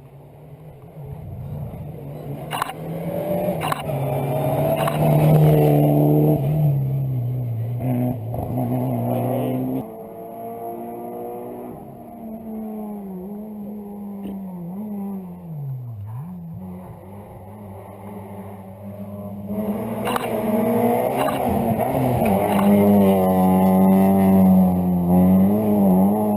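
Rally car engine heard from onboard, revving hard through the gears. Its pitch climbs, drops sharply about ten seconds in, sinks low near the middle, then climbs again under acceleration from about twenty seconds in. A couple of sharp cracks come early on.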